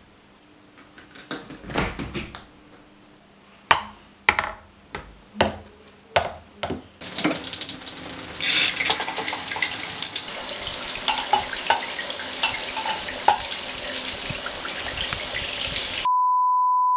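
A few scattered knocks and clicks, then a shower starts and its water spray hisses steadily for about nine seconds. Near the end the spray cuts off abruptly into a steady single-pitch beep tone.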